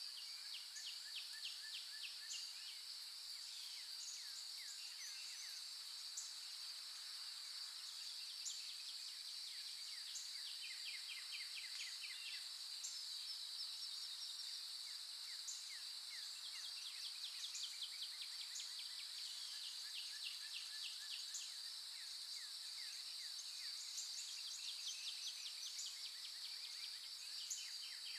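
Outdoor nature ambience of insects keeping up a steady, high-pitched drone, with repeated bursts of quick chirping trills coming and going every few seconds.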